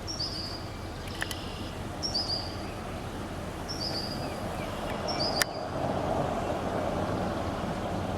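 A bird repeating a short, high two-part call four times, about every two seconds, over a steady outdoor rush of noise that swells in the second half. A sharp click about five seconds in.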